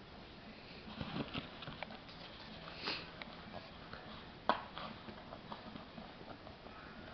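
A Shih Tzu chewing and tearing at a paper plate while a kitten paws at it: scattered crinkles, rustles and light clicks, with a sharper click about four and a half seconds in.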